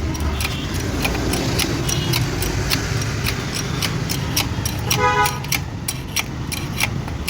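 Steady road-traffic rumble with a vehicle horn tooting briefly about five seconds in, over a regular train of sharp clicks, about three a second.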